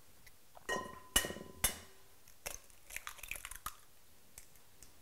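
Eggs tapped sharply against the rim of a glass mixing bowl a few times, the glass ringing briefly after the taps, then the shell crackling as it is pulled apart over the bowl.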